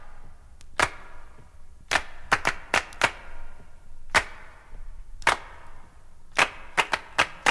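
Handclaps playing alone in a syncopated pattern that repeats about every two seconds, each clap sharp with a short echo: the clap intro of a disco-funk recording, before the band comes in.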